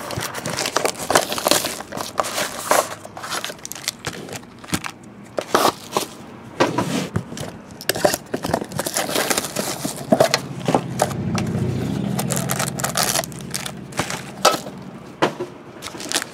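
Football card boxes, packs and cards being unwrapped and handled: plastic wrap crinkling among light knocks and scrapes of cardboard. A low steady hum comes in for a couple of seconds past the middle.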